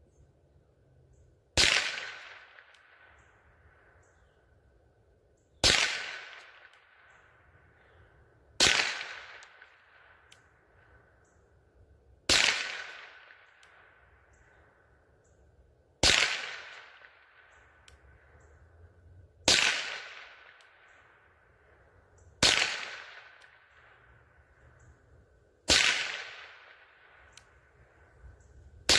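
Rossi RS22 semi-automatic .22 LR rifle firing CCI Mini-Mag 36-grain hollow-point rounds: eight single shots spaced three to four seconds apart, each a sharp crack that trails off in an echo.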